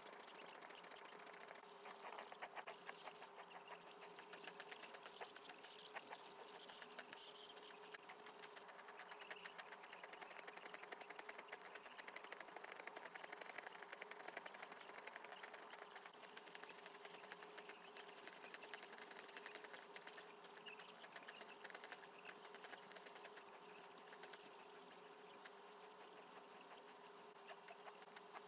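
Ultrasonic dental scaler buzzing and hissing against tartar-covered dog teeth, with a fine rapid crackle as the calculus breaks away. A steady low tone runs underneath, and the level rises and falls as the tip moves.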